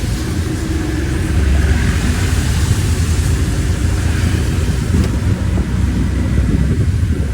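Steady low rumble with a hiss over it, the sound of riding in a road vehicle in motion.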